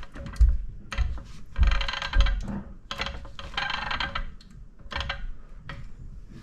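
A jack being worked under a Tesla Model Y's rear lower control arm, a series of mechanical clacks and low thumps about once or twice a second, as it lifts the arm and compresses the rear coil spring.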